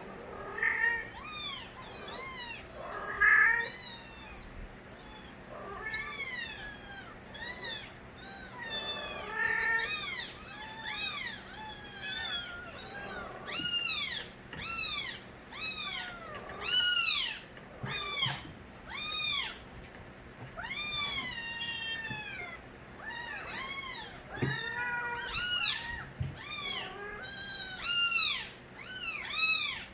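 Young kittens meowing loudly: short, high-pitched cries, several overlapping, about two a second.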